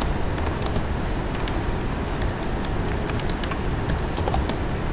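Computer keyboard keys being typed in short, irregular clusters of clicks, over a steady background hiss.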